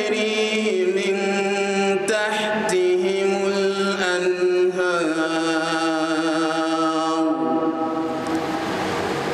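Male voice reciting the Quran in a melodic chant, holding long notes with ornamented turns; the phrase fades out about seven and a half seconds in.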